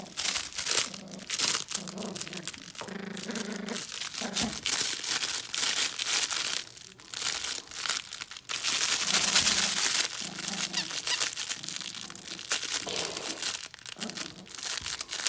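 Crinkle paper inside a plush dog toy crackling and rustling irregularly as a puppy chews and tugs at it, loudest about two-thirds of the way through.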